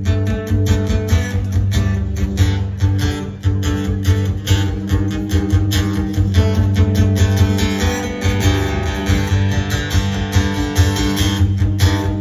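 Acoustic guitar strummed in a steady rhythm, an instrumental passage without singing.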